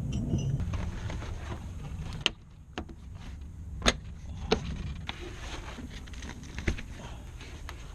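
A handful of scattered sharp clicks and knocks, the sound of trim, seat fittings and tools being handled while the car's rear seat is removed, over a steady low rumble.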